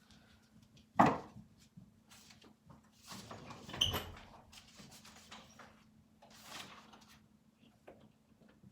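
A sharp knock about a second in, then clattering and rustling of small objects being handled, with a faint steady hum underneath.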